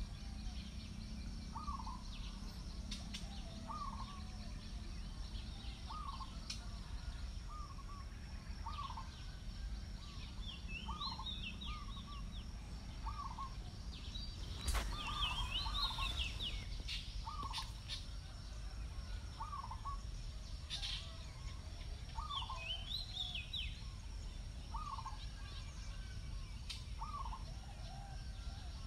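Birds calling: a short call repeated about once a second, with occasional higher chirping trills, over a steady low background noise. A brief louder noise comes about halfway through.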